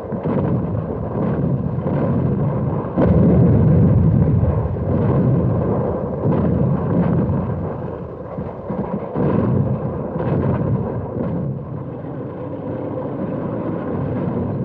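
Battle sounds of tank gunfire and shell bursts: a continuous heavy rumble broken by repeated sharp blasts at irregular intervals, louder from about three seconds in.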